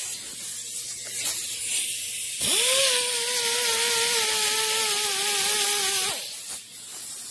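Pneumatic die grinder with a small abrasive disc spinning up about two and a half seconds in and grinding a small nut: a steady high whine over loud air hiss, the pitch sagging slightly under load, until it cuts off about six seconds in.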